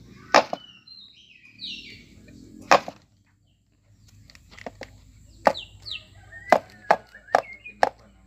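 The hinged jaw of a child's barongan (rampak barong) mask snapping shut, sharp loud clacks, about nine in all: two well apart, then a quicker run in the second half.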